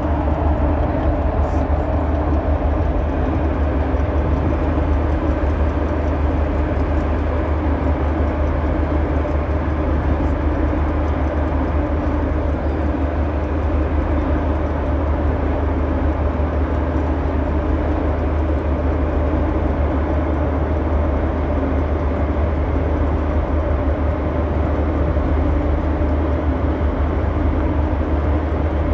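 Steady, unbroken low drone of a passenger ferry's engines while it is underway, a deep hum with faint steady tones above it.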